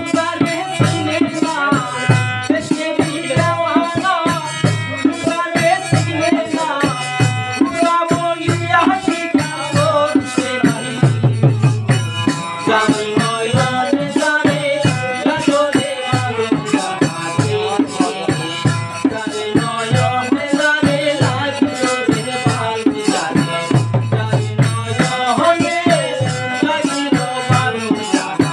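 Bengali folk music: a two-headed barrel drum beats a steady rhythm under harmonium and men's voices singing, with a rattling percussion pulse on top.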